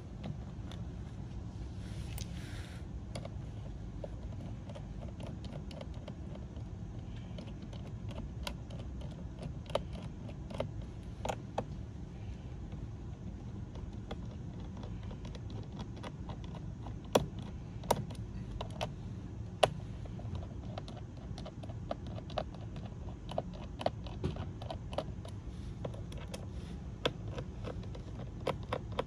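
Scattered small clicks and taps of hands and tools working on a laptop's bottom cover, with a few sharper clicks around the middle and quicker small ones near the end, over a steady low background rumble.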